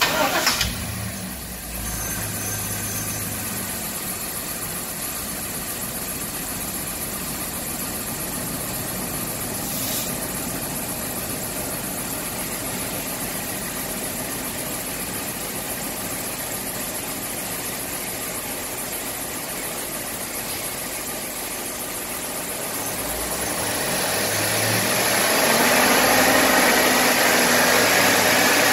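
6.0-litre Vortec V8 of a 2003 GMC Sierra 2500, running under the open hood. It flares loudly in the first second or so, then settles to a steady idle. About 24 s in, the engine speed rises over a couple of seconds and holds at the higher speed.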